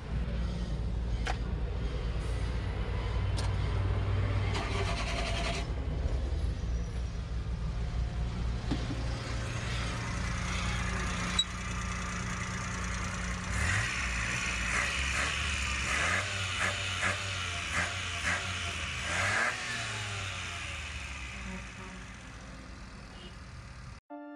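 Suzuki F6A three-cylinder engine running steadily just after its distributor has been refitted and timed at about 10 degrees, with the revs rising briefly a couple of times in the second half.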